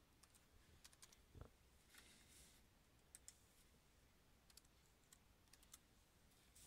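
Faint, scattered computer keyboard keystrokes and mouse clicks over near silence, with a soft low thump about a second and a half in.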